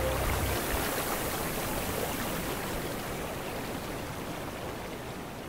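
The soundtrack's last low notes stop about half a second in, leaving a steady rushing noise that slowly fades out.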